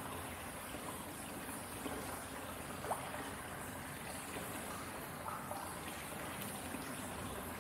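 Hot-spring water running steadily into an indoor bath, with scattered drips falling onto the water surface, one sharper drip about three seconds in.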